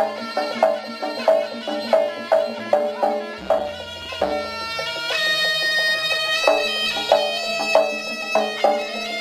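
Live Javanese jaranan music: a reedy shawm plays a wavering melody over steady, regular drum and struck-percussion beats.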